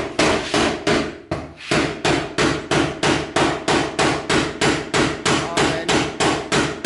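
Hammer driving a steel punch into the top of a safe door, about three quick blows a second, each with a short metallic ring, to knock back the lock inside.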